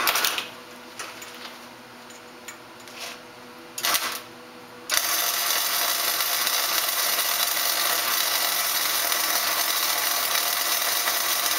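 Flux-core wire-feed welder striking its arc about five seconds in and running a continuous weld with a steady, loud hiss. Before that there are two brief noises, just after the start and about four seconds in.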